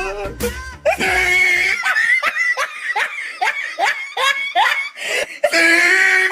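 Laugh-track sound effect: a long run of quick, rhythmic ha-ha bursts. It follows background music with a bass line that drops out about a second and a half in.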